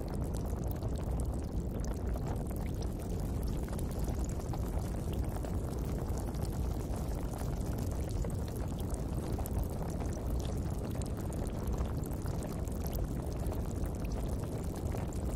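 Steady, even rushing water with a few faint crackles, unchanging throughout.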